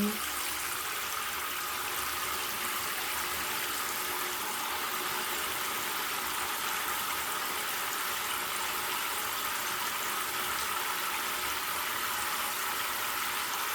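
Hot tap water pouring steadily into a bucket, falling onto the washing-machine detergent drawer parts soaking in it.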